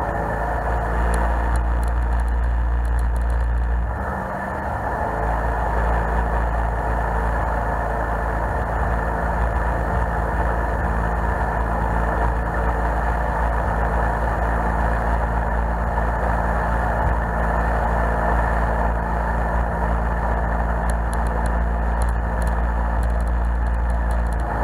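Jet boat engine running steadily under way, with water and wind noise around it. About four seconds in the level dips briefly and the engine note shifts, then it runs on steadily.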